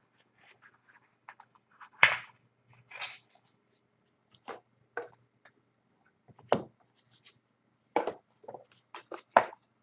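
Sealed wrapper of a trading card pack being worked and torn open: a string of short, sharp crinkles and snaps, eight or so spread through, the pack resisting being opened.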